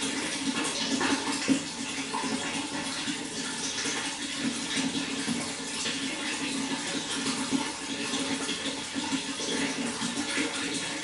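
Water flowing and splashing steadily, a continuous rushing with fine crackling detail.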